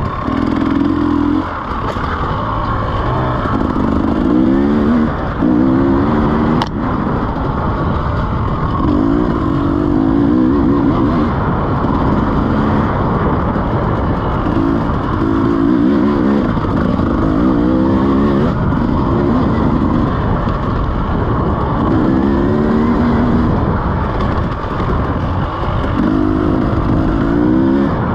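2017 KTM EXC 300 single-cylinder two-stroke enduro engine under riding load, its pitch climbing again and again as the throttle is opened and closed along the trail. A single sharp click about six and a half seconds in.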